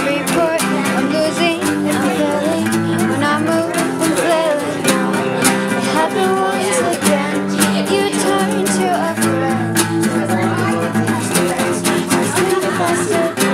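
Acoustic guitar strumming chords, with a second guitar and a voice singing along.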